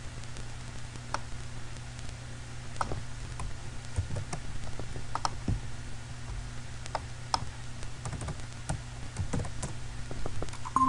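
Irregular clicks of a computer keyboard and mouse as a web address is entered, over a steady low hum.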